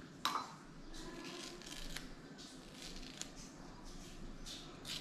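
Kitchen knife cutting into a mango held in the hand: short scraping slicing strokes through flesh and skin, with a sharp knock about a quarter second in and a few lighter clicks later.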